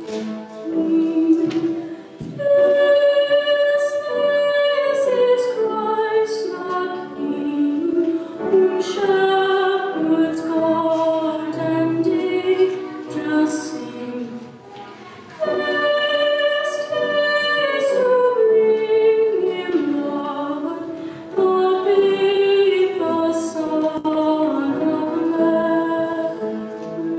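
A woman singing a slow song solo, with long held notes in phrases that step downward in pitch; the same kind of phrase comes around twice.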